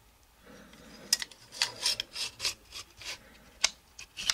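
Steel bolt rod of a Charles Daly N4S 12-gauge semi-auto shotgun being slid and fitted against the magazine tube and bolt: a quick run of about a dozen short metallic scrapes and clicks, beginning about a second in.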